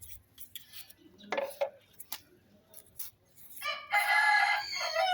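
A rooster crowing once, a long call starting a little under four seconds in, after a few light knocks.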